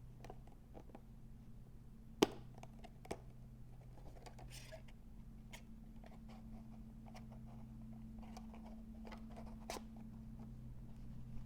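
Hands handling and opening trading-card box packaging: scattered light taps and rustly clicks, with one sharp click about two seconds in, over a steady low hum.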